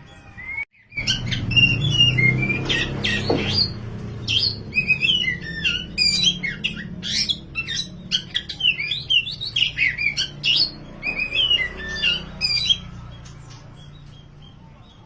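Oriental magpie-robin of the black 'kacer wulung' form singing a fast, varied run of whistles and chattering notes, beginning about a second in and fading out near the end, over a low steady hum.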